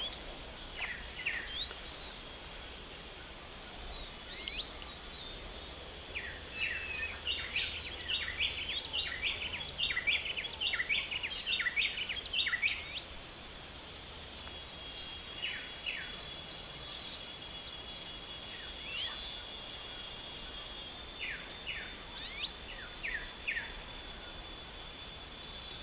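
Small birds, among them blue-black grassquits, giving short rising chirps, with a quick flurry of calls about a third of the way in. A steady high insect drone runs underneath.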